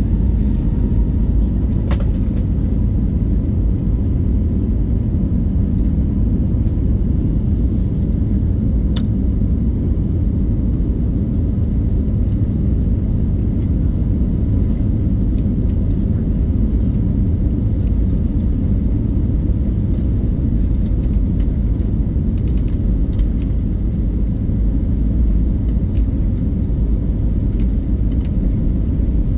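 Airbus A321neo cabin noise heard from a window seat while the jet rolls along the ground: a steady, even low rumble, with a faint steady whine above it and a couple of light clicks.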